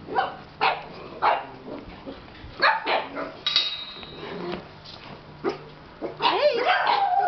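Dogs barking: short, sharp single barks every second or so, turning into a denser, continuous run of barking and yelping about six seconds in.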